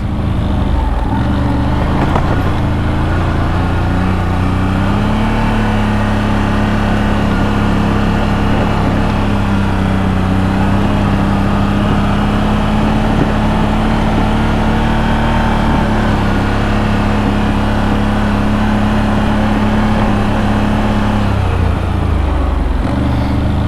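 2023 CFMoto CFORCE 1000 Overland ATV's V-twin engine running under way on a trail. It picks up revs about five seconds in, holds them steady, and eases off a couple of seconds before the end.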